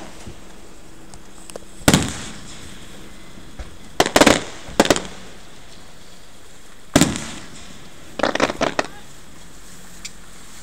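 Aerial fireworks bursting in a series of booms. There is a single bang about two seconds in and a quick cluster of bangs around four seconds, then another sharp boom near seven seconds and a rapid string of crackling pops just after eight seconds.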